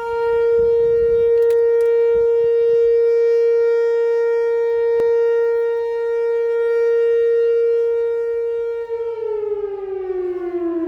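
Whelen WPS-4004 electronic outdoor warning siren sounding a loud, steady tone during a test. About nine seconds in, the pitch begins to wind down in a smooth falling glide.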